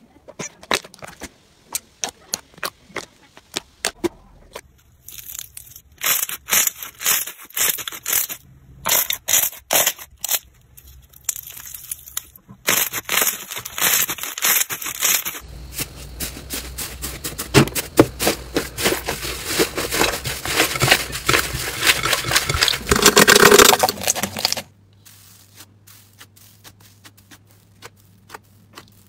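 Hands squeezing and pressing slime: a string of wet clicks and pops, with dense crackling through the middle stretch that is loudest just before it stops abruptly, followed by sparse quiet clicks.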